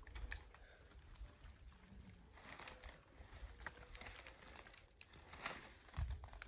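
Dry leaves and forest undergrowth rustling and crackling as they are handled and stepped on, in scattered soft crackles that grow busier partway through. A few low bumps come near the end.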